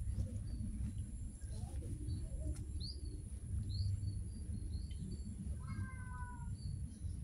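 A cat gives one short meow that falls slightly in pitch about six seconds in. Small birds chirp briefly now and then over a steady low rumble.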